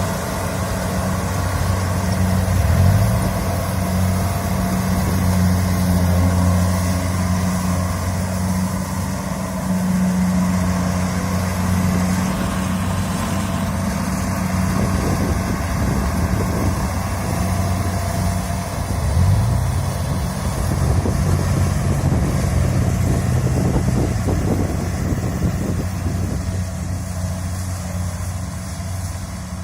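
Kubota DC70 combine harvester's diesel engine running steadily under working load, its pitch rising briefly about twenty seconds in before settling again.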